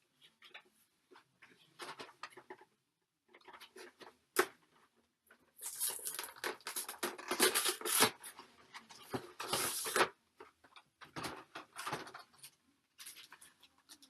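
Packaging of a Pokémon TCG collection box being opened by hand: irregular crinkling, rustling and tearing of plastic wrap and cardboard, with two longer, busier stretches of crackling in the middle.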